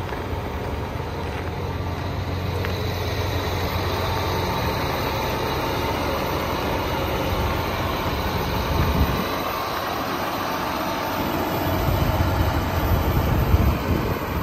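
John Deere 8370R tractor's six-cylinder diesel engine idling steadily, with an uneven low rumble in the last few seconds.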